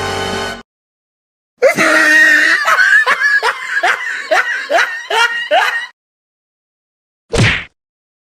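A laughing sound effect: a loud run of about ten quick 'ha' bursts, each dropping in pitch, lasting about four seconds after a short silence, then a single short burst near the end. A stretch of music cuts off abruptly just before it.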